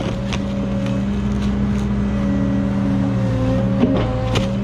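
A heavy diesel engine of the land-clearing machinery runs steadily under load, with a few sharp knocks and cracks of brush or wood, the loudest near the end.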